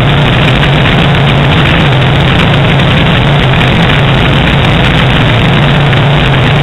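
Light aircraft's piston engine and propeller in cruise flight, a loud, steady drone with a constant low hum under rushing air noise.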